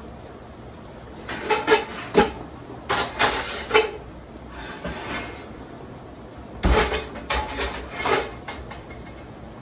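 Metal pans clattering and knocking together with a short metallic ring as they are handled and pulled out. The clatter comes in two bursts: a second or so in, and again around seven seconds in.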